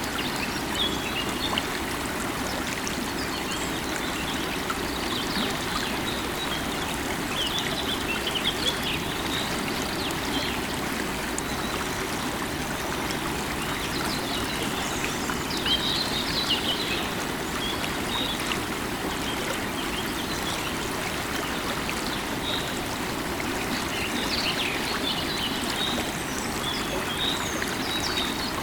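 River water running steadily over rocks, with birds chirping and calling intermittently above it.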